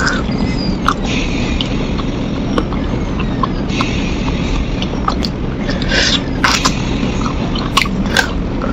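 Close-miked eating of spicy chicken feet: scattered wet smacks and clicks as the skin and meat are gnawed and sucked off the small bones, over a steady low background rumble.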